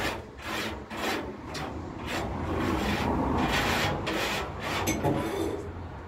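Hand sanding of the boat's painted steel hull with sandpaper: rasping back-and-forth strokes about twice a second, turning into a faster, continuous scrubbing from about two seconds in until near the end.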